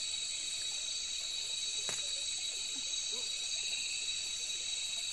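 Steady, high-pitched chorus of night insects, several shrill tones held without a break, with one sharp click about two seconds in.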